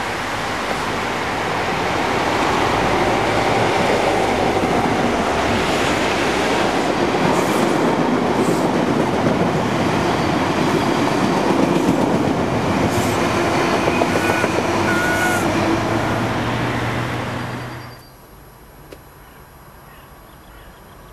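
A First Great Western High Speed Train (InterCity 125) passing at speed: the leading Class 43 diesel power car, then the rush and rattle of its coaches' wheels on the rails, with a steady engine drone near the end as the rear power car goes by. The sound cuts off abruptly to faint background about three seconds before the end.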